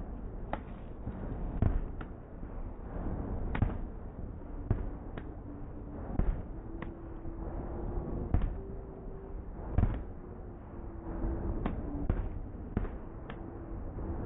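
Aerial fireworks bursting: a string of sharp booms at irregular intervals, roughly one a second, with a low rumble of echo between them.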